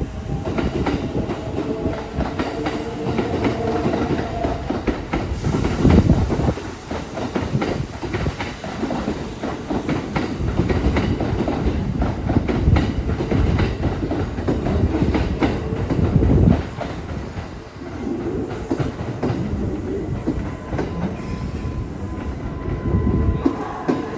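Kintetsu electric train passing close by, its wheels clattering over the rail joints, with brief lulls twice.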